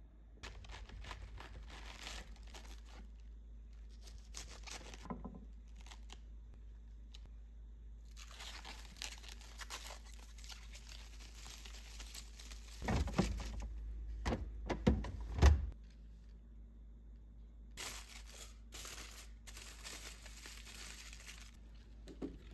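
Packaging crinkling and tearing in several long stretches as it is handled. A few thumps about two-thirds of the way through are the loudest sounds.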